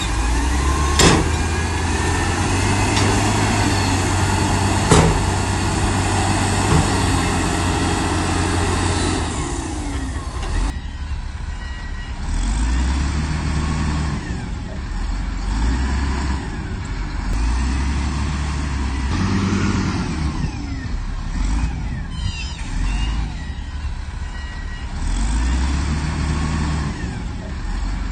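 Diesel engine of heavy earthmoving machinery running under load, with a few sharp metallic knocks in the first part and, later, the engine note swelling and easing every few seconds as it works.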